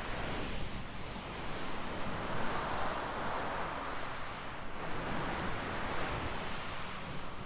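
Fluffy ear covers on a 3Dio binaural microphone being rubbed by hand: a soft rushing noise that swells and fades in slow strokes every couple of seconds.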